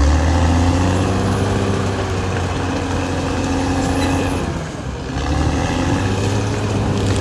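Caterpillar D6R XL bulldozer's diesel engine running hard with a deep, steady drone. About five seconds in the engine note drops and quietens briefly, then picks up again.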